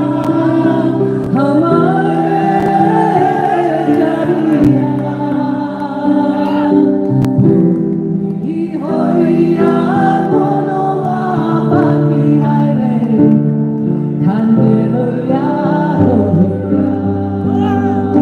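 Live performance of a Bangladeshi folk song: singing with modern gayageum accompaniment, the melody held in long, sliding vocal lines over steady sustained notes.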